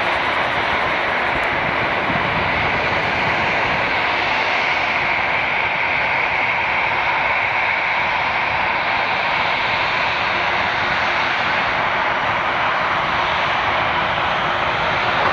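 Twin jet engines of an Airbus A320-family airliner running at taxi power as it turns around on the runway: a steady rushing whine that is brightest midway through, when the nose points toward the listener.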